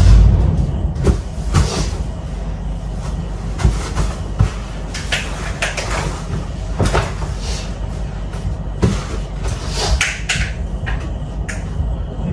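A frosted-glass, metal-framed door pushed shut with a bang at the start, then scattered knocks and rustles as someone sits down and moves about on a floor mattress with a blanket.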